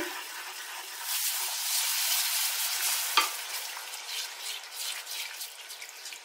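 Hot butter-and-flour roux sizzling in a frying pan as cold milk is poured in and stirred with a wooden spoon. The sizzle swells about a second in and slowly dies down as the milk cools the roux, with a single sharp knock about three seconds in.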